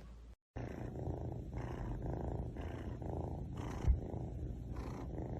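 Domestic cat purring, the rough purr swelling and fading about twice a second with its breaths. It starts after a brief dropout, with one short knock partway through.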